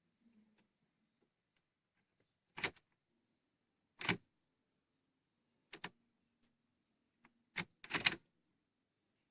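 About five short clicks or knocks, a second or two apart, with the loudest pair close together near the end, over a faint low hum. No engine is heard cranking or running.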